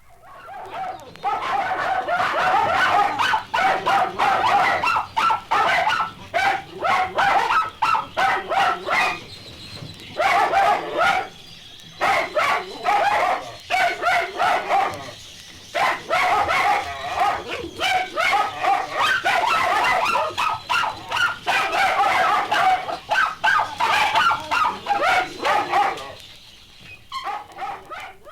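Dogs barking and yipping in rapid, overlapping runs, with a few short breaks.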